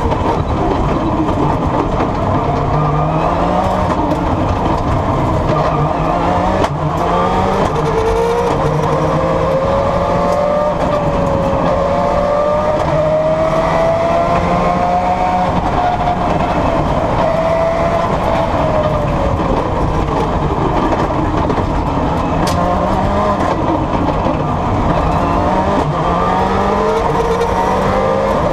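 Subaru rally car's engine heard from inside the cabin, driven hard: its pitch climbs and drops again and again through gear changes, over a steady rumble of road noise.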